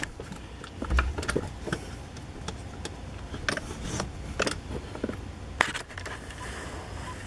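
Handling noise from a handheld camera moved around inside a pickup cab: scattered light clicks and rattles, with a low thump about a second in.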